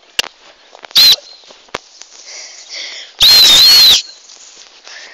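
A hand whistle blown twice to call a dog: a short, loud blast about a second in, then a longer blast a little after three seconds whose shrill pitch wavers up and down.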